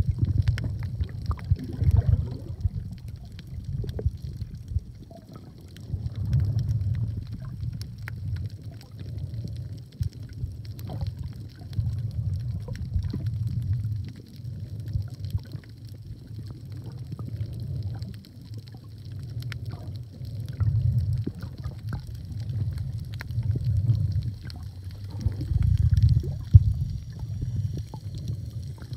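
Muffled underwater sound picked up by a submerged phone: low rumbling surges of moving water that swell and fade every few seconds, with scattered small clicks and a faint hiss.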